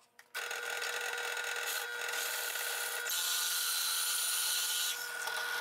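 Delta 17-900 drill press running with a steady motor whine while a Forstner bit bores into a wooden board. The cutting hiss swells for a couple of seconds in the middle as the bit is fed into the wood.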